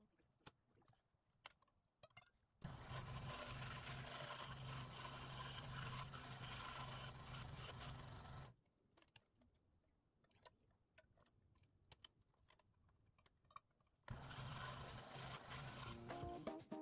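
Scroll saw running and cutting thin wood lettering, in two runs: it starts abruptly about two and a half seconds in and stops about six seconds later, then starts again near the end. Between runs, light clicks and taps as the wooden pieces are handled, and music comes in at the very end.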